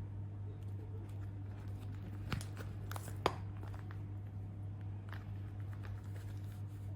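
Scattered light clicks and taps of objects being handled, two sharper ones a little after two and three seconds in, over a steady low hum.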